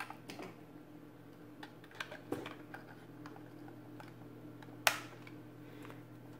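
Light plastic clicks and taps as the halves of a DJI Phantom 4's plastic shell are pressed together along the seam, with one sharper snap about five seconds in.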